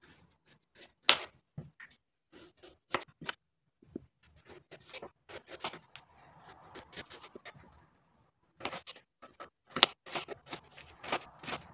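Kitchen knife cutting a carrot on a plastic chopping board: irregular sharp taps of the blade striking the board, with softer scraping between them. A quicker run of chops comes in the last few seconds.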